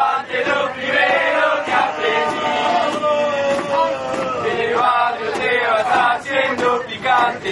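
Crowd of football supporters singing a terrace chant in unison, many male voices in long, drawn-out sung phrases with short breaks between them.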